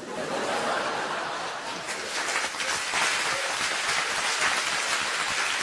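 Audience applauding and laughing in response to a comedian's punchline.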